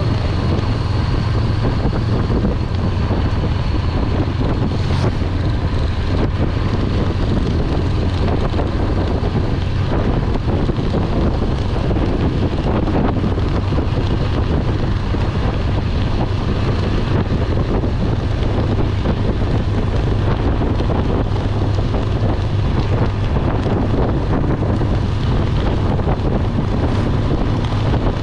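Wind rushing over the microphone of a moving motorcycle, with a steady low rumble underneath.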